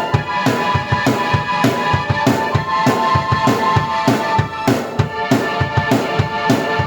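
Drum kit and keyboard played together in an original instrumental piece: a steady rock beat of kick and snare hits about twice a second under held keyboard chords.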